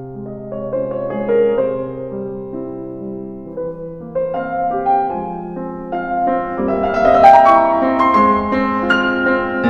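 Piano music with held, overlapping notes, growing fuller and louder about seven seconds in.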